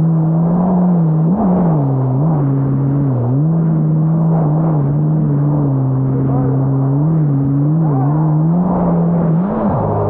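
Yamaha GP1800R SVHO jet ski's supercharged four-cylinder engine running at a steady high pitch, dipping briefly several times and coming back up, over a steady rushing noise.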